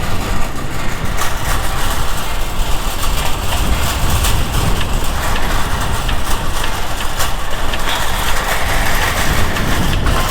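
Motorcycle running, with a heavy, steady low rumble on the rider's microphone.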